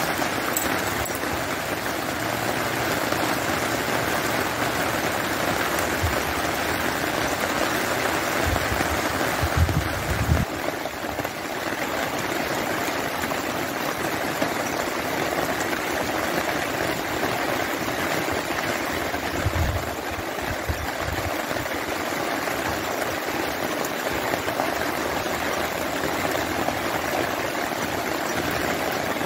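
Steady rain falling, a constant even hiss. A few brief low thumps break in about six, ten and twenty seconds in, the loudest around ten seconds.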